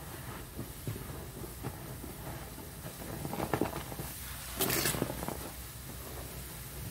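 Soapy sponges squeezed and squished by hand in a sink full of dish-soap suds: a run of short wet squelches and crackling foam, with one louder squelch of water a little past the middle.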